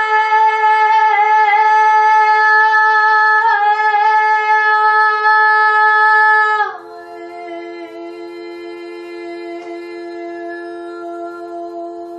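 A woman's voice singing a long wordless held note, then sliding down to a lower, softer held note about two-thirds of the way through. A steady drone tone sounds underneath throughout.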